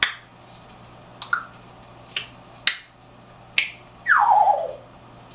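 African grey parrot making a run of sharp clicks, about five spaced roughly a second apart, then a loud falling call that glides down in pitch about four seconds in.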